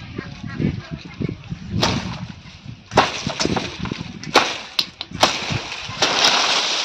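Blade chopping into coconut palm fronds: four or five sharp whacks, roughly a second apart. Near the end comes a rush of rustling palm leaves as a cut frond shifts.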